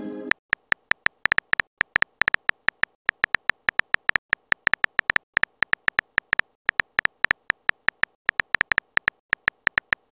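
Keyboard tap clicks from a texting app's typing sound effect, one per letter typed: quick short ticks, about six a second in an uneven rhythm, each with a bright, slightly pitched edge.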